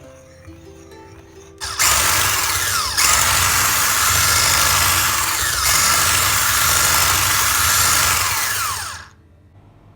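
A small electric kitchen appliance motor runs loudly for about seven seconds, with two brief changes in its sound along the way, then stops. Soft background music plays underneath.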